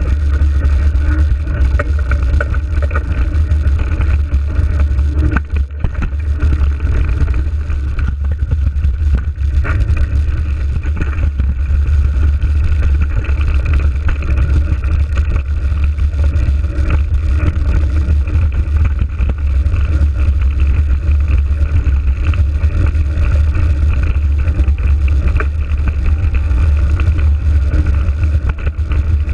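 Wind buffeting an action camera's microphone as a mountain bike rolls fast along a dirt trail: a loud, steady low rumble with scattered knocks and rattles from the trail, easing briefly about five seconds in.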